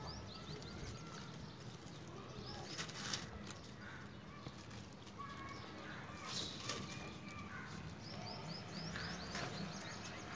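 Faint rustling of a plastic sheet and tape being handled, a few brief crinkles. Short runs of quick bird chirps come near the start and again near the end.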